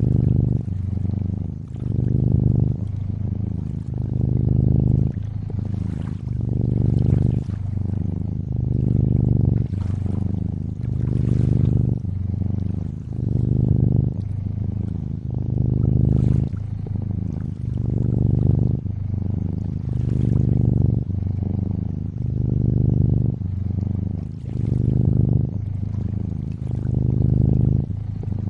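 Domestic cat purring close up, swelling and easing with each breath about every two seconds. Gentle lapping water sits fainter behind it.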